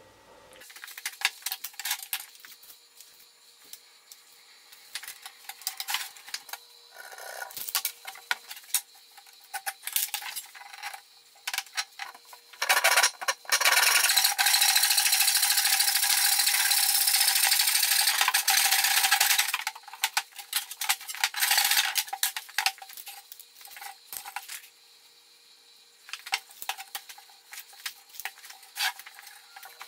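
A handsaw cutting through a 2x4 board, a steady rasping that lasts about seven seconds in the middle. Before and after it come scattered clicks and knocks of boards and tools being handled.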